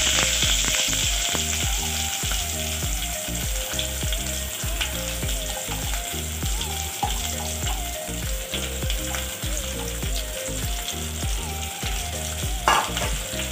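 Sliced onions frying in hot oil in a stainless-steel pot: a steady sizzle, loudest as they go in and then easing. One sharp knock near the end.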